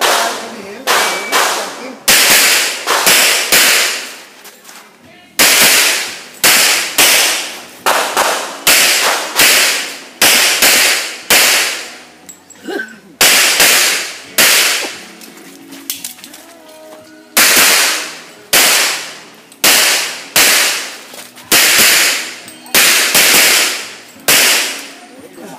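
A semi-automatic pistol fired shot after shot in quick strings, about one to two shots a second, broken by short pauses. Each crack trails off in a brief echo.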